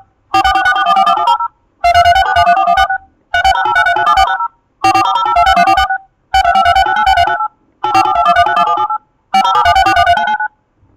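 DTMF touch-tone dialing: bursts of rapid keypad tones about a second long, one after another, with short pauses between them, seven in all. Each burst is a quick run of dual-tone digit beeps.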